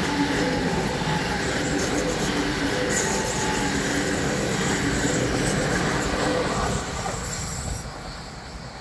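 ICE high-speed electric train running along the rails: steady rumbling wheel-and-rail noise with a few steady tones over it, dropping away about seven seconds in.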